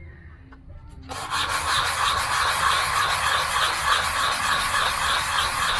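Holley 94 carburetor base being rubbed in circles on 180-grit sandpaper to flatten it, a steady rasping scrape with a repeating stroke rhythm that starts about a second in.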